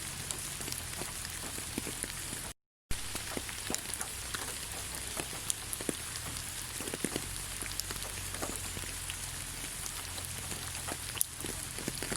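Rain falling on leaves: a steady hiss dotted with many separate drop ticks. The sound cuts out completely for a fraction of a second about two and a half seconds in.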